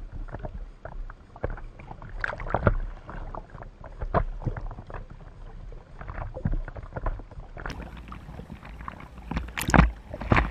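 Sea water sloshing and splashing against a camera held at the water surface, in many short splashes over a low surf rumble. Two louder splashes come near the end, as the camera pitches up over a wave.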